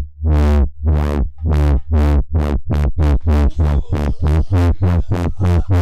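Electronic music: bright synth stabs, each quickly dulling as its filter closes, repeat over a sustained deep bass and come steadily faster, from about one a second to several a second, like a build-up.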